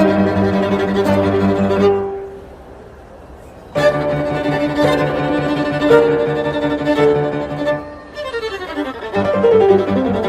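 Violin music with lower bowed strings underneath, playing a fast classical-style piece. About two seconds in it drops away to a quiet pause. It comes back strongly with held chords, and quick descending runs of notes follow near the end.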